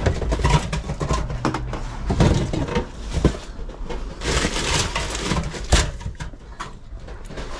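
Aluminium soda cans knocking and clinking together as they are rummaged in a drink cooler, with rustling and several sharp knocks, the sharpest a little under six seconds in.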